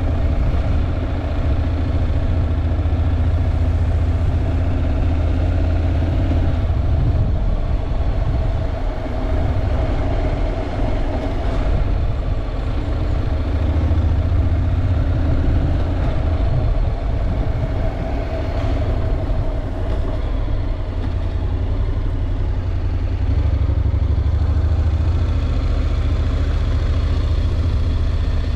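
Honda NC750X motorcycle's parallel-twin engine running on the move, a steady low drone that rises and falls slightly in pitch.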